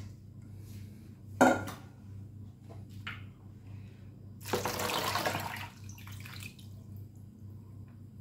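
Kitchen work with a bowl: a single sharp knock about a second and a half in, then a rush of pouring lasting just over a second near the middle, over a low steady hum.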